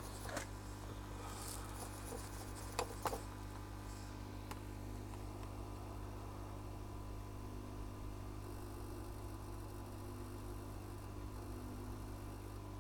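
Steady low electrical hum, with a few light clicks in the first three seconds.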